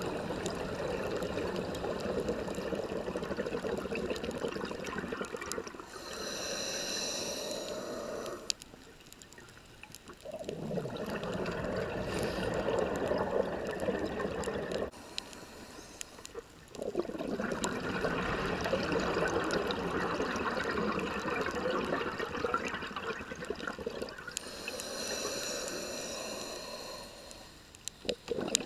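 Scuba regulator breathing heard underwater: long stretches of bubbling exhaust noise, with occasional high hissing inhalations, broken by three short quieter pauses.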